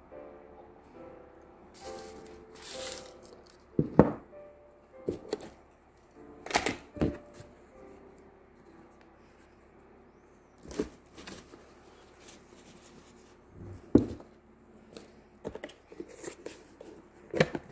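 Soft background piano music, with a few sharp knocks and clicks of craft supplies (glue bottle, scissors) being picked up and set down on a wooden worktable, and a brief rustle of paper or cloth.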